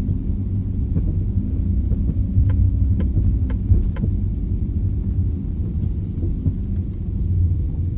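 Low, steady road and drivetrain rumble of a Nissan E52 Elgrand on the move, with a short run of sharp ticks or knocks about two and a half to four seconds in. The ticks are the abnormal noise the owner traces to the front passenger side.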